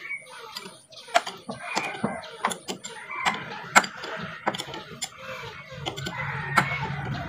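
Sharp metal clinks and taps of a hand wrench working the rusty nuts that clamp a truck's rear axle to its leaf spring, struck every half second to second or so. Clucking calls run in the background, and a low steady hum comes in about six seconds in.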